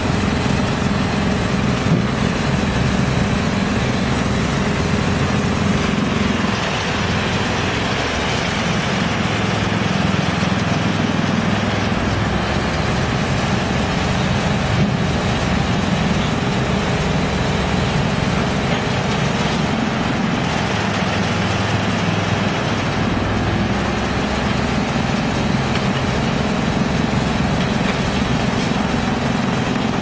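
YGX2113 drum wood chipper, driven by a large electric motor, running with a steady loud mechanical drone, mixed with the diesel engine of a tracked excavator working beside it.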